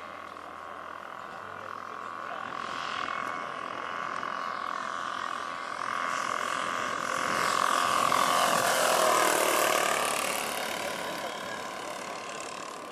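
Twin engines of a quarter-scale RC Beech 18 model airplane droning on a low pass. The sound swells as the plane comes in, is loudest about eight to ten seconds in with its pitch dropping as it goes by, then fades as it climbs away.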